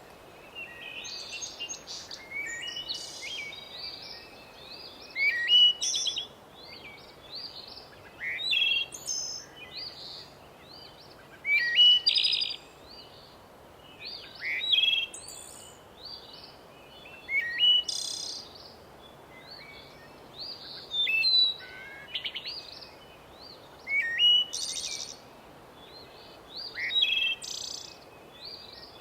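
Forest birdsong: one bird repeats a short, loud song phrase about every three seconds, while other birds chirp and twitter more softly in between.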